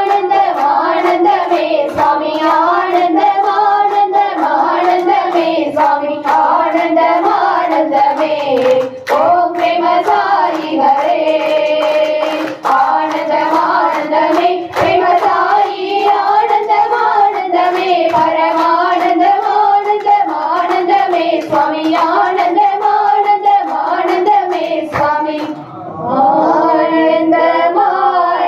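A congregation sings a Hindu devotional bhajan together in unison, clapping along in a steady beat.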